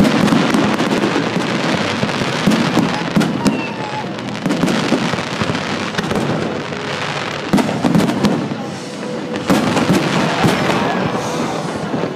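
Fireworks display: aerial shells bursting with repeated bangs and dense crackling, in several loud clusters.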